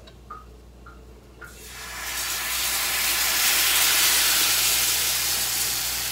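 Whisk tapping lightly against the batter bowl a few times, then crepe batter sizzling as it is poured into a hot, spray-oiled pan. The hiss starts about a second and a half in, builds quickly and eases off slowly.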